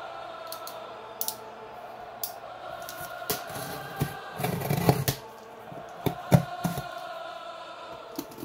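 A box cutter slicing through packing tape on a cardboard box, with a dense scraping cut about four to five seconds in. Scattered taps and clicks of the blade and hands on the cardboard come through, the sharpest about six seconds in. Background music plays underneath.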